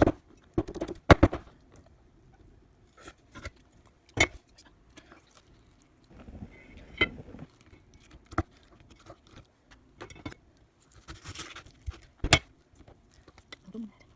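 Scattered clicks, knocks and scrapes of things being handled in a kitchen, with a sharper knock about a second in, another about four seconds in and another near the end, and softer rustling scrapes between them.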